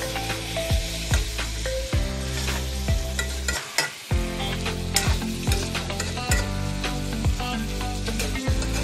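A metal spoon scrapes and knocks against a wok as fish pieces are stirred through a spiced onion-tomato masala frying in mustard oil, with a frying sizzle under the clatter. The masala is being mixed so the spices coat the fish.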